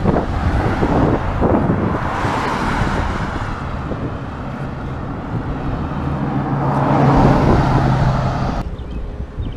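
Cars passing on a busy road, heard from the roadside: tyre and engine noise swells twice as vehicles go by, the second with a steady low engine hum, then the sound cuts off abruptly near the end.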